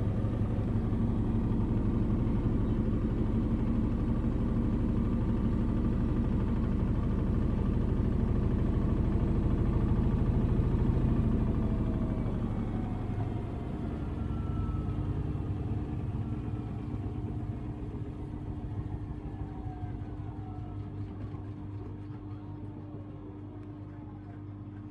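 Samsung Ecobubble washing machine with a digital inverter motor spinning, the drum giving a steady rumble; about halfway through the spin begins to wind down, the level drops and the motor's whine falls in pitch as the drum slows.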